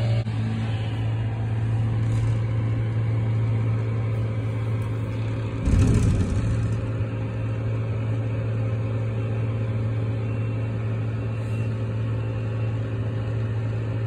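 A vehicle engine running steadily at idle: a low, even hum. A brief low thud comes about six seconds in.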